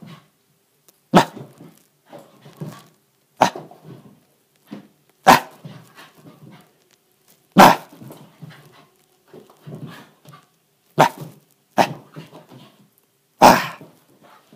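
Shiba Inu puppy barking in a play frenzy: about seven sharp, loud barks, one every second or two, with quieter low sounds between them.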